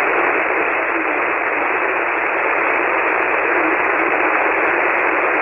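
Steady radio static hiss from a remote SDR receiver tuned to single-sideband on 7.188 MHz, cutting in suddenly and band-limited to a narrow voice-width passband. No voice can be picked out of the noise.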